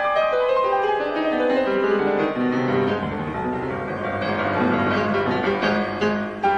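Grand piano played solo in a classical piece: a quick run of notes falling in pitch over the first two seconds or so, then slower notes and chords.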